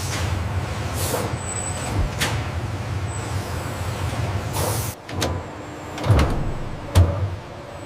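Factory machinery ambience: a steady low hum broken by short hisses of air and a few sharp clunks, the loudest near the end.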